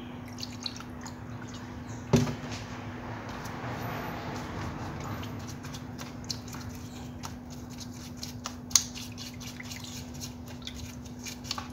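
Metal fishing-reel parts being brushed and sloshed in a shallow tray of diesel, faint liquid splashing and small clicks, with a sharp knock about two seconds in and another near nine seconds. A steady low hum runs underneath.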